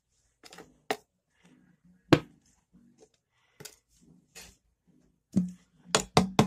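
Sharp plastic clicks and crackles from a nearly empty squeeze bottle of PVA glue being squeezed into a plastic jar, with a quick run of several clicks near the end.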